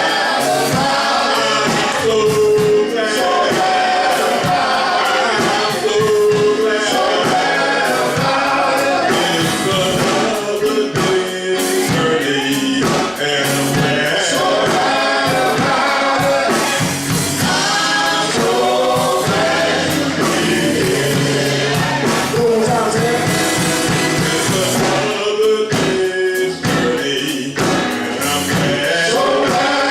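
Gospel music with singing by a choir and a lead voice, loud and steady throughout.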